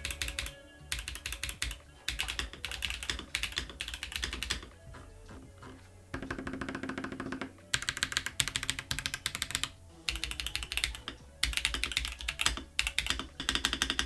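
Typing on an AKKO 5075B Plus mechanical keyboard fitted with Akko V3 Cream Blue switches: fast runs of crisp keystrokes in several bursts with short pauses between.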